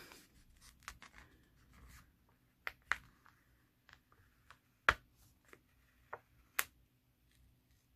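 Hands handling a paper planner page and a small sticker: scattered light taps and clicks, the sharpest about five seconds in, with faint paper rustling between them.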